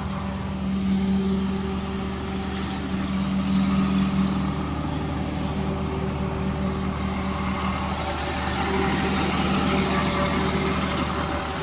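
Cummins diesel generator set running at a steady speed, its engine note even throughout.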